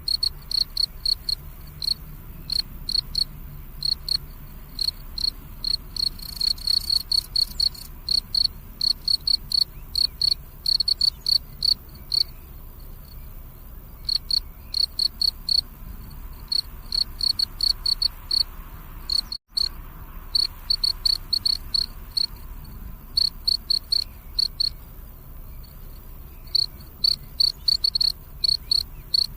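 Field cricket chirping: short, high chirps repeated about three times a second, with a few brief pauses. The sound cuts out for an instant about two-thirds of the way through.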